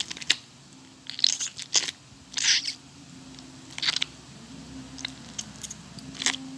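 Gel-bead mesh stress ball squeezed in the hands: irregular short crackly squishing sounds, half a dozen or so, as the beads press and bulge through the net.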